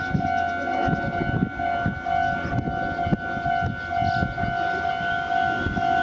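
Japanese level-crossing warning bell ringing its repeating electronic "kan-kan" tone, about two strokes a second. Underneath is the low rumble and knocking of an approaching train.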